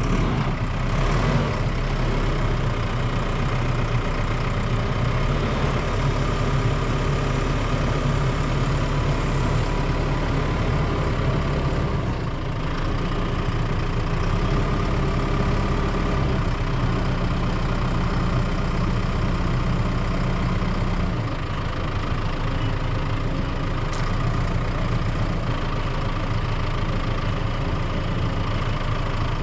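An engine running steadily, its note shifting about twelve and again about twenty-one seconds in.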